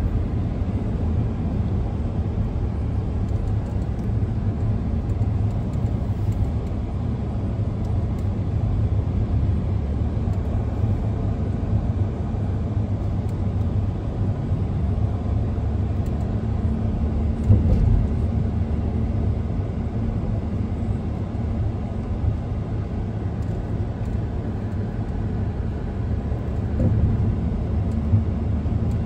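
Steady low rumble of a car's engine and tyres on the road, heard from inside the cabin while driving. A brief thump comes a little past the middle.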